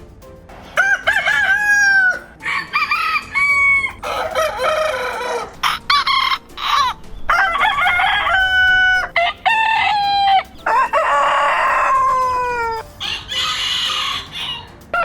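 Rooster crows, about a dozen short calls one after another, varied in pitch and tone: some clear and pitched with a falling tail, others harsher and raspier.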